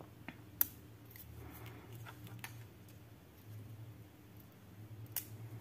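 Faint rustle and a few sharp clicks of thin protective plastic film being peeled off a wireless earbud's shell.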